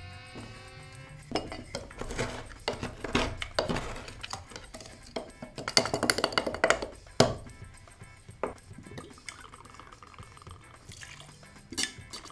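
Wooden muddler knocking and grinding blackberries, sage leaves and sugar cubes in a stainless steel cocktail shaker tin: a run of irregular knocks, densest about six seconds in. Near the end, liquid pours with a metallic clink, over background music.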